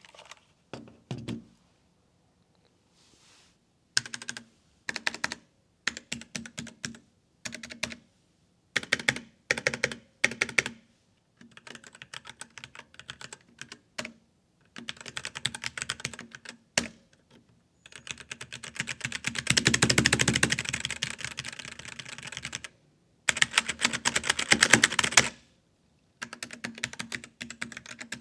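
Typing on a Redragon Ryze mechanical keyboard with Outemu Red linear switches: bursts of keystrokes with short pauses between them, and a long fast flurry of keys about two thirds of the way in.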